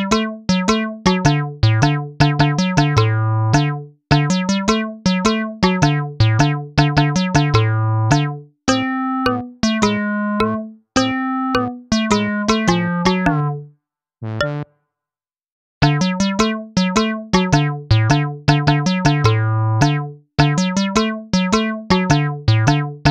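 Background music: a bouncy electric-piano or synth keyboard tune of quick, short notes over low bass notes, with a pause of about two seconds a little past halfway.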